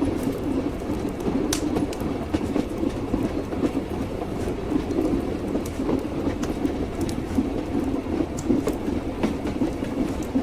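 Train wheels clattering over the rails: a steady rumble of the moving rail carriage with scattered light clicks and knocks.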